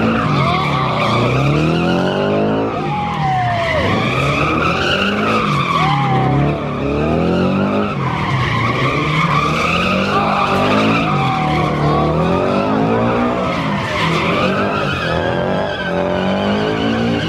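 A car drifting: its tyres squealing continuously while the engine revs up and down over and over, rising and falling every couple of seconds.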